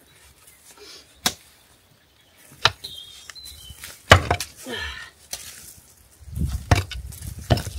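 A digging tool striking stony ground: about six sharp strikes, roughly one every second and a half.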